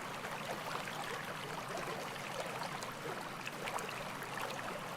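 Running water: a creek or stream flowing steadily, with small splashes and trickles over the rocks.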